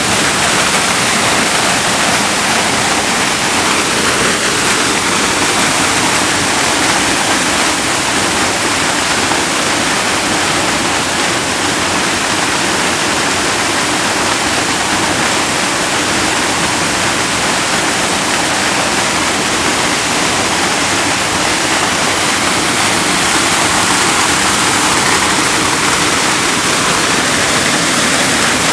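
Waterfall plunging into a rock pool: a loud, steady rush of falling and splashing water.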